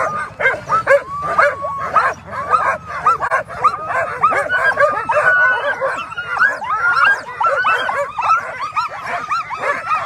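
A hitched team of Alaskan husky sled dogs yipping and barking in a dense chorus of many overlapping voices, with no let-up: the excited clamour of dogs eager to run at the start line.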